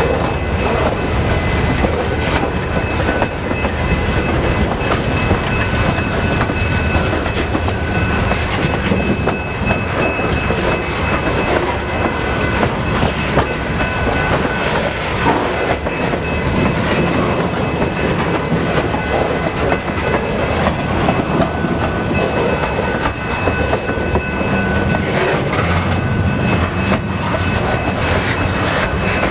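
Canadian Pacific freight train 252 rolling past, its cars clicking over the rail joints in a steady rhythm, with a steady high ringing over the noise.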